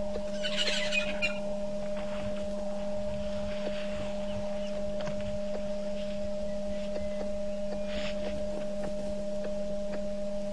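Birds calling over a steady low hum: a short burst of high chirping calls about half a second in, and another near eight seconds.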